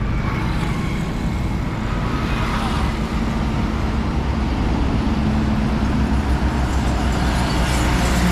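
Heavy cargo trucks and other highway traffic driving past close by: diesel engines running under tyre and road noise, steady throughout.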